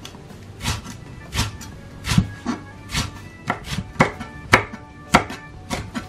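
Chef's knife slicing a white green onion and chili peppers on a wooden cutting board, about a dozen uneven knocks of the blade on the board, roughly two a second.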